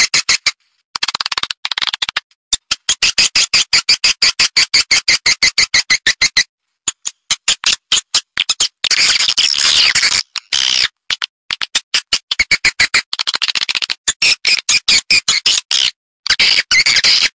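Recorded swiftlet lure call: fast, dense trains of high chirps and clicks, broken by brief silent gaps a few times. It is a calling and pulling sound played to draw swiftlets into a swiftlet house.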